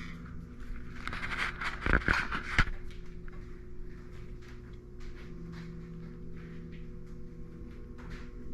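Steel vise parts being handled during reassembly: scraping and rattling about a second in, ending in two sharp metal knocks, then a few faint light taps over a steady low hum.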